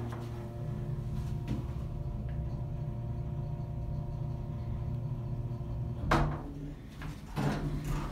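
Otis Series 1 elevator car running with a steady low hum, a sharp thump about six seconds in, then the car doors sliding open near the end.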